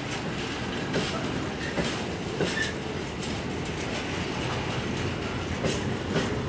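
Freight train of container and swap-body flat wagons passing close by: a steady rolling rumble, with the wheels clacking over rail joints at irregular intervals.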